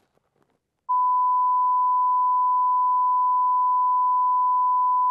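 Broadcast reference test tone that goes with SMPTE colour bars: one steady, unbroken pure beep at a constant pitch and level. It starts about a second in, after a short silence.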